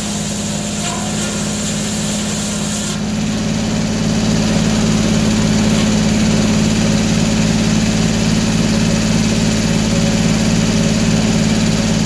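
Large circular sawmill blade finishing a cut through a cant, with a high hiss that stops sharply about three seconds in. After that the blade spins free while the engine driving the mill runs steadily.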